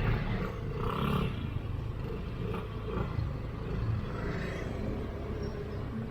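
Steady low rumble of motor traffic and a scooter's engine, heard while riding through city streets.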